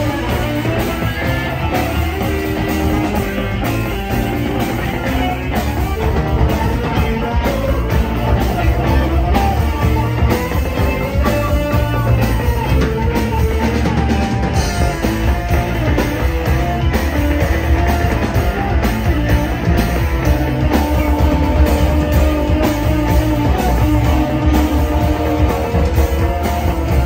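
Rock band playing live on two electric guitars, electric bass and a drum kit.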